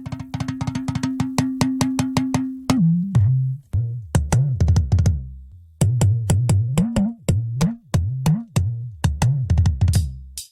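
Instrumental intro of a song on drum machine and synthesizer. A fast, even run of beats over a held low note gives way about two and a half seconds in to a sliding bass line under sparser drum hits, and the music stops abruptly near the end.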